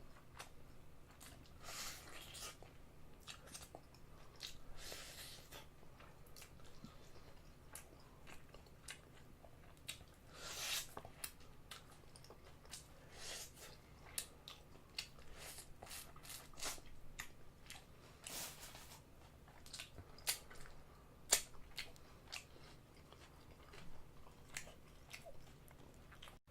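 Close-miked chewing and biting of crunchy seasoned fried chicken: irregular wet clicks and smacks, with several longer crunches about half a second each.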